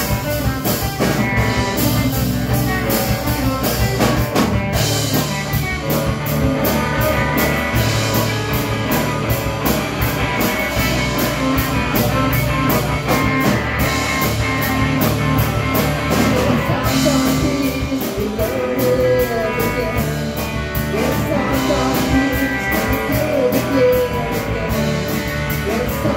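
A small rock band playing live: drum kit with a steady cymbal beat, electric bass, and acoustic-electric and electric guitars.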